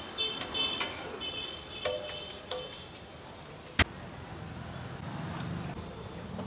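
Steel spatula scraping and clinking on a large flat tawa griddle, each stroke giving a short metallic ring, with one sharp loud click a little under four seconds in, followed by a steady low rumble.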